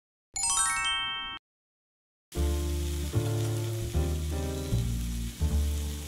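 A quick descending run of bright chime-like notes, then a second of silence, then Korean beef (hanwoo) steak sizzling on a hot grill pan over background music with a bass line.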